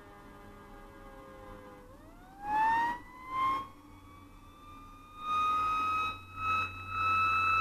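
Fire engine siren gliding slowly down in pitch, then about two seconds in winding sharply back up and holding a high steady tone. Several short, loud blasts of the engine's air horn come on top of it, two close together about halfway through and three more near the end.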